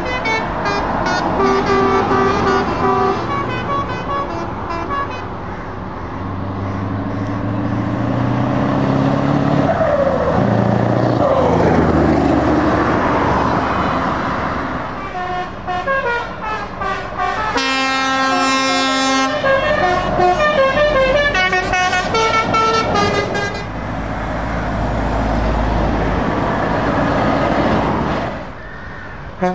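Heavy show trucks driving past on a road, engines running, sounding their air horns again and again in short notes of changing pitch. The loudest horn is a long chord a little past the middle; toward the end only engine and road noise remain.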